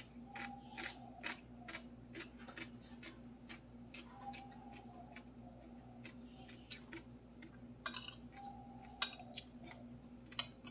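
Close-up eating sounds: fried rice being chewed with wet mouth clicks and smacks, about two to three a second, with a spoon clinking and scraping on the plate, the loudest click about nine seconds in. A low steady hum runs underneath.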